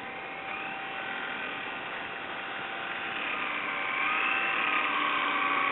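Small electric motor and propeller of a toy RC airplane running, a whine of several held tones that slowly grows louder.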